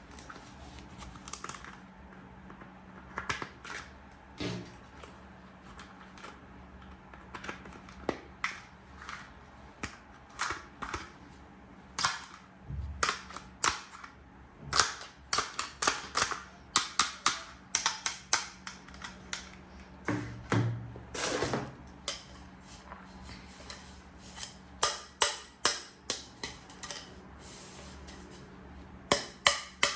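Hard plastic toy pieces being handled and fitted together: irregular sharp clicks, taps and short scrapes, some coming in quick runs.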